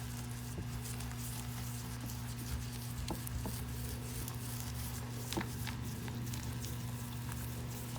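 Faint wet squishes and small ticks of resin being massaged and scraped by hand into a felt pipe-patch sleeve during wet-out, over a steady low hum.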